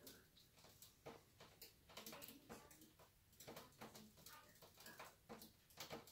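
Near silence with faint, irregular clicks and taps from rough-polished opal pieces being handled in a dish of water.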